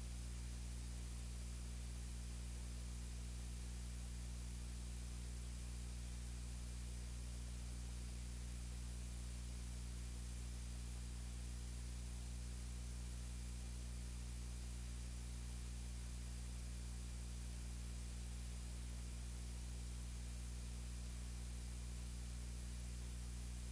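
Steady electrical hum with several overtones over a constant hiss.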